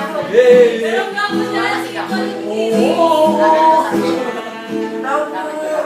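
Amateur singing of a song, the voice gliding between notes over held instrumental chords that pause briefly a little past the middle.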